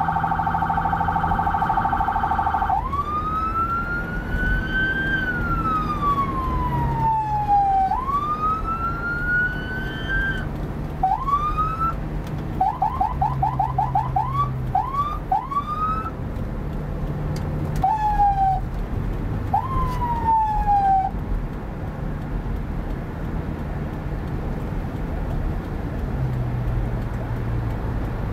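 Electronic emergency siren switching between tones: a fast warble at first, then two slow wails rising and falling, then a run of quick rising chirps and short sweeps. The siren stops about 21 seconds in, leaving car engine and road noise.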